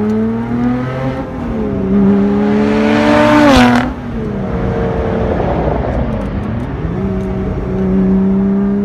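Lotus Exige Sport 380's 3.5-litre supercharged V6 driven hard. The engine note rises and drops back at each upshift, a loud rushing swell builds and cuts off sharply about four seconds in, then the note sags as the car eases off and picks up again near the end.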